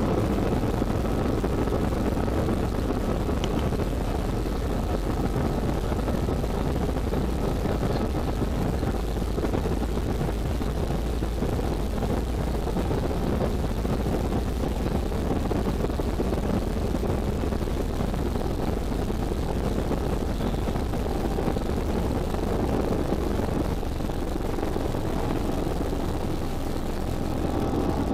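Jet airliner's turbofan engines at takeoff power, heard from inside the cabin over the wing: a steady, dense rush with a faint high whine, together with the rumble of the takeoff roll, as the plane accelerates down the runway and lifts off near the end.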